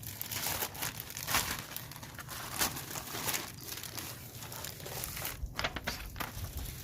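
Packaging crinkling and rustling in the hands, with irregular crackles, as packed parts and papers are handled during an unboxing.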